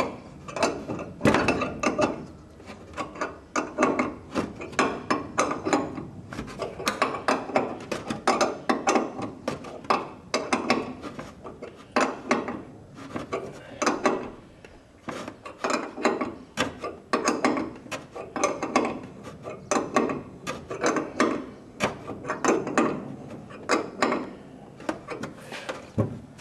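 Ratchet wrench clicking in repeated short runs as it cranks a screw-driven push tool braced against the wing spar, forcing a bird-strike dent out of the aluminium leading-edge skin.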